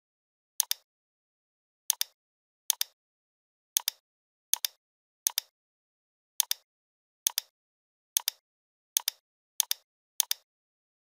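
Computer mouse button clicking about a dozen times at uneven intervals; each click is a sharp press-and-release pair.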